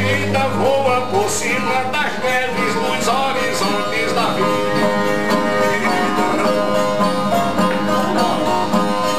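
A man singing the drawn-out, wavering end of a line of repente verse over a strummed viola. From about four seconds in the viola plays on alone in a steady repeating pattern.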